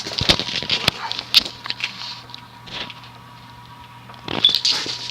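Cast-iron motor of a vintage variable-speed ceiling fan humming steadily as it is brought up to high speed, with scattered clicks in the first couple of seconds and a short louder rustle about four and a half seconds in.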